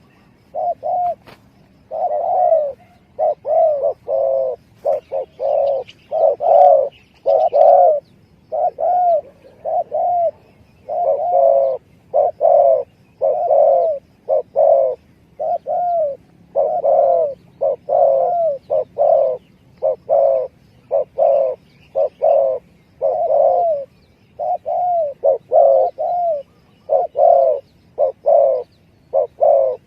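Spotted dove (tekukur) cooing over and over in quick groups of short, arched coos, played as a lure call to draw in wild doves.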